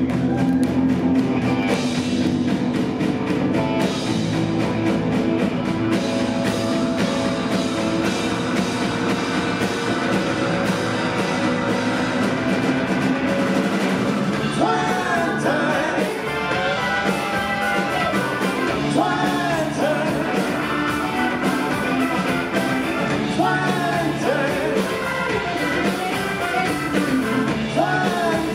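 Live rock band playing: electric guitar, bass guitar and drum kit. A male lead vocal comes in about halfway through.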